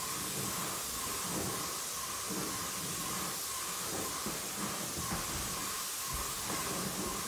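Hose-fed paint spray gun spraying paint onto a wooden wall: a steady high hiss, with a fainter uneven hum underneath.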